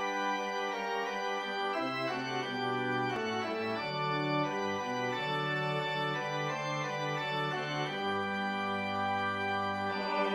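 Instrumental introduction to a hymn, played as held organ-like chords over a bass line that steps slowly from note to note.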